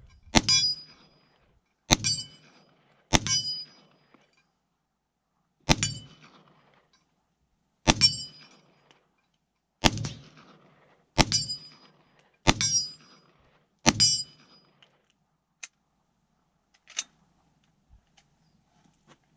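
An M1 carbine firing nine semi-automatic .30 Carbine shots at an uneven pace, each a sharp crack with a trailing echo. The firing stops about two-thirds of the way through, leaving a few faint clicks.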